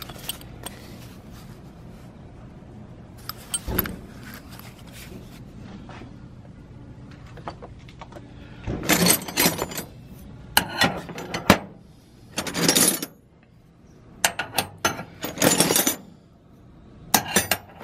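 Proto Challenger wrenches clinking and rattling against one another as they are picked up and set down, in several short bursts of metallic clatter with gaps between, busiest in the second half.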